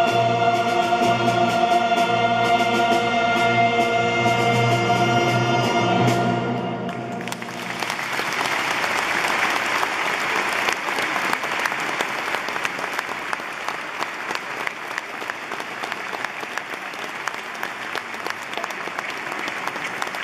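Massed choir and orchestra holding a final sustained chord, which ends about six and a half seconds in; then the audience applauds steadily for the rest.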